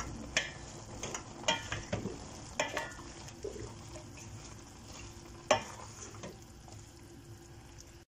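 Wooden spoon stirring chopped green peppers in a stainless steel pot of boiling vinegar, oil and water, with a steady sizzle from the pot underneath. A few sharp knocks of the spoon against the pot, the loudest about five and a half seconds in, after which the stirring stops.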